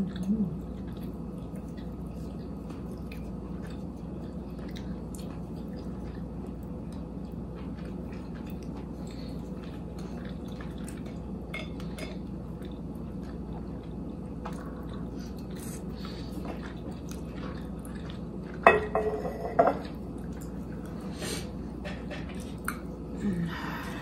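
Quiet eating sounds: chewing and light clicks of utensils against takeout containers over a steady low room hum. About three quarters of the way through comes one louder short pitched sound lasting about a second.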